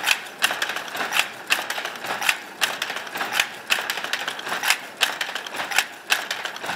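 Toyoda automatic shuttle loom running at steady speed, weaving: a sharp clack about twice a second as each pick is thrown and beaten up, with lighter rattling and ticking of the mechanism between.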